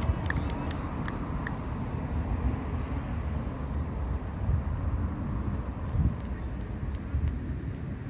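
Steady low rumble of passing road traffic.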